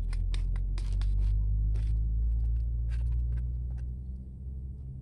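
Light clicks and scrapes of dry cat-food kibble being pushed across a wooden bench by a hand, over a steady low rumble that fades about four seconds in.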